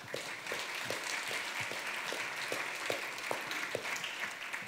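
Audience applauding, a dense steady clapping that eases off near the end.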